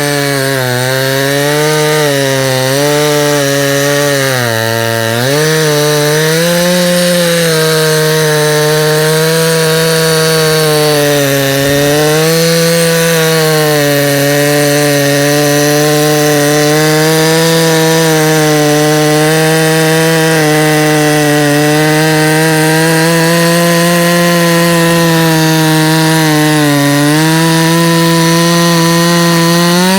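Proyama 68cc two-stroke gas chainsaw cutting wood under load. The engine note sags about four to five seconds in, then holds fairly steady with small wavers as the chain bites.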